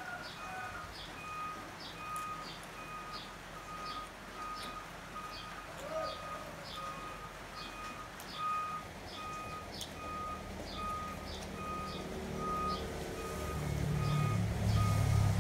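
Electronic beeping repeating at about two beeps a second. A vehicle engine grows louder near the end.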